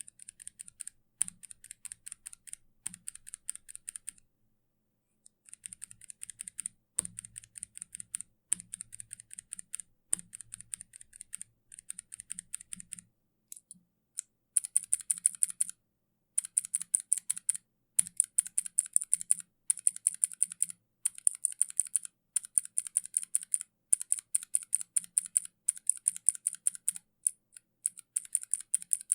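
Kailh mechanical keyboard switches being typed on in rapid runs of keystrokes with short pauses. From about halfway through the keystrokes are much louder and sharper.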